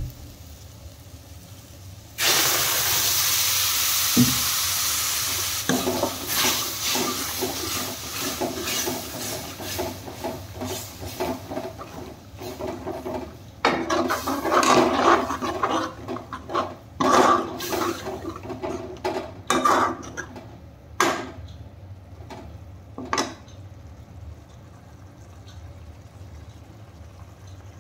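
Water poured into a hot steel kadai of fried turnip and spices: a loud hiss starts suddenly about two seconds in and lasts a few seconds. Then a steel ladle stirs the pan, scraping and clinking against the metal, the strokes thinning out near the end.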